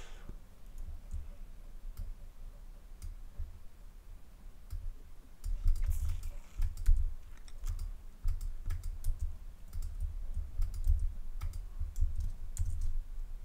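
Scattered clicks of a computer mouse and keyboard during desktop editing, irregular and a few a second, over an uneven low rumble that grows stronger about halfway through.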